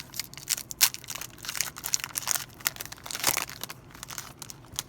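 A plastic trading-card pack wrapper being torn open and crinkled by hand: a quick, irregular run of sharp crackles that stops near the end.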